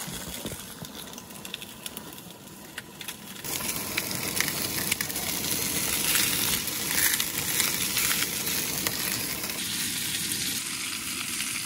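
Bratwursts sizzling in a frying pan on a camp stove, the sizzle steady and much louder from about three seconds in.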